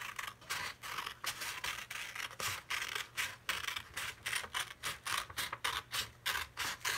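Small scissors cutting a sheet of regular printer paper: a steady run of short snips, about three or four a second.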